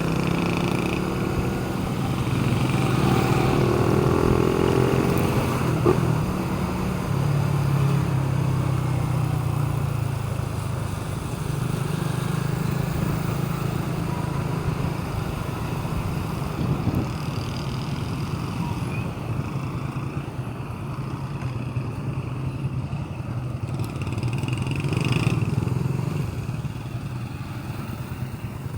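Motor vehicle engine idling steadily, its pitch rising briefly a few seconds in, with a sharp click about six seconds in.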